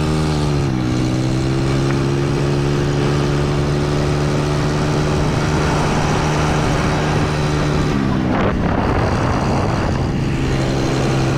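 A small vehicle's engine under way. Its pitch settles after speeding up at the start and holds steady, drops briefly about eight seconds in, then comes back up and holds steady again.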